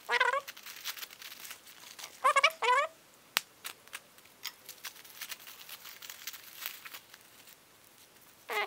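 Newspaper and cotton wadding crinkling and rustling as they are unwrapped from a plant by hand, with scattered small crackles. Short high-pitched calls sound over it, once near the start, twice a little after two seconds in and once at the end, louder than the paper.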